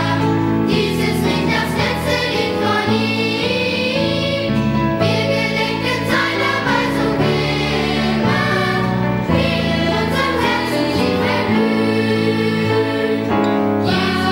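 A choir singing a Christian song over instrumental accompaniment.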